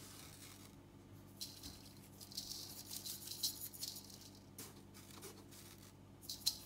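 Salt being shaken out over seasoned fish in a stainless-steel bowl: several short bursts of rattling, falling granules, about a second and a half in, again from about two to four seconds, and near the end. A faint steady hum runs underneath.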